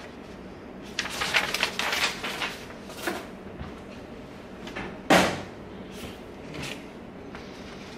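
A sheet of paper rustling and crinkling as it is handled for a second or two, then a single sharp knock about five seconds in, with a lighter knock after it.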